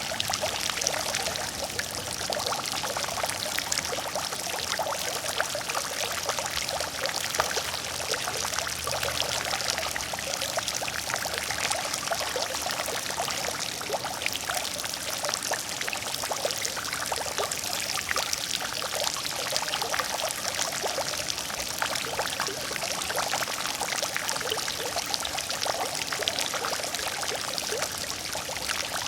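Water fountain running steadily: water pouring and splashing into a basin, a continuous dense patter of fine splashes.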